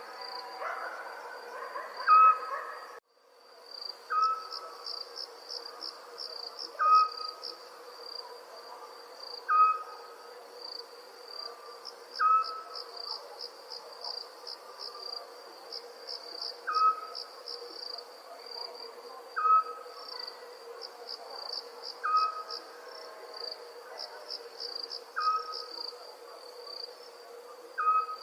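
Crickets chirping in a steady, pulsing high trill, with a short single-note call repeating about every two and a half seconds. The sound drops out for about a second near the start, then resumes.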